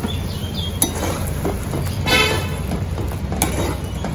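A few sharp clinks of a utensil against a cooking pan over a steady low hum, with a short horn-like toot about two seconds in.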